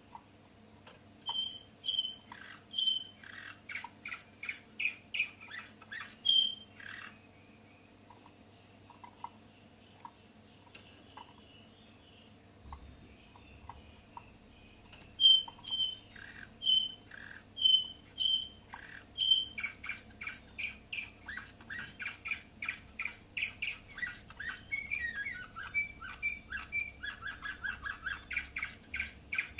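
Domestic canary singing in its cage. A run of sharp, repeated chirps is followed by a pause of several seconds, then more chirps that build into fast, rapid trills for the rest of the time.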